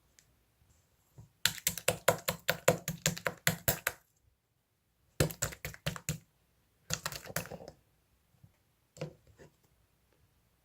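Rapid sharp clicks or taps, about six a second, in three runs separated by short pauses, then a few scattered clicks near the end.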